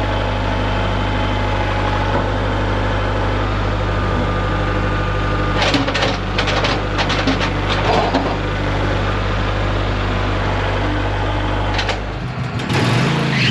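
Engine running at a steady idle, with a run of clanks and knocks for a couple of seconds in the middle. Near the end the engine speeds up, its pitch rising.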